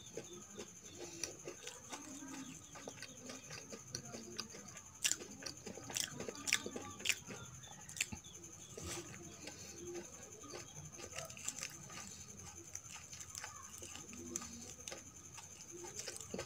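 Close-miked eating sounds: lip smacks, wet mouth clicks and soft chewing of a syrup-soaked kala gulab jamun, with a run of louder sharp smacks about five to nine seconds in.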